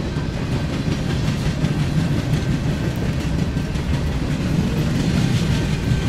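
Tram running along its track: a steady low rumble with fast clattering of wheels on rails.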